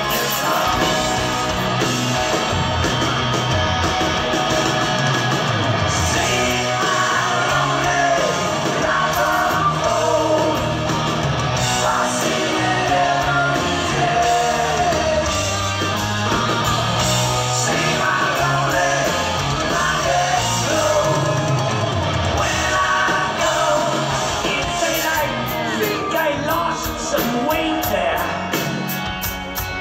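Live rock band playing with drums and electric guitar, and a male lead vocal singing, at times shouting, over it.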